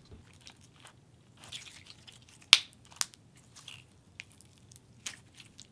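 Stiff, putty-like clear glitter slime being squeezed and stretched by hand: scattered soft sticky clicks and crackles, with two sharper pops about two and a half and three seconds in.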